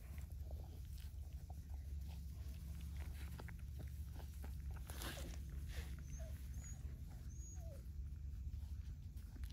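Four-week-old Epagneul Breton puppies nursing and scrambling over their mother, with many small clicks and rustles and a few short squeaks a little past the middle, over a steady low rumble.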